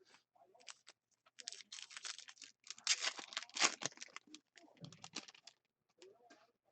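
Crinkling and tearing of a trading-card pack wrapper being opened, with cards rustling as they are handled. A dense run of crackles and clicks builds about a second in and is loudest around the middle.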